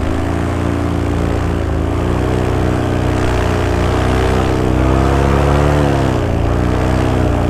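Paramotor engine and propeller running under throttle, pushing the pilot forward on the ground against a gusty wind. The revs climb about four seconds in and drop back a couple of seconds later.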